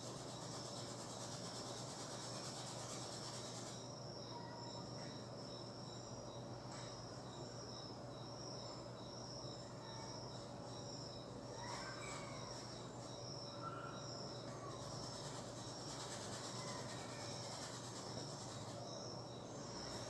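Faint high-pitched insect chirping, repeating steadily in even pulses, over quiet room tone.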